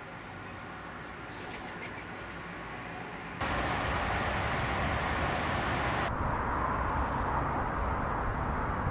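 Faint rustling, then a steady, even outdoor background noise that starts abruptly about a third of the way in and turns duller a few seconds later.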